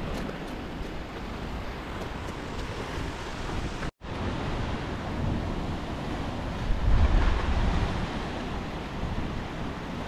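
Surf washing in over a rocky reef shore, with wind buffeting the microphone in gusts, strongest about seven seconds in. The sound drops out for an instant about four seconds in.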